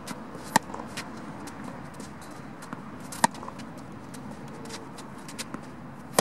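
Tennis racket striking the ball three times, sharp loud hits about every three seconds, as groundstrokes in a fed baseline drill. Fainter knocks between them.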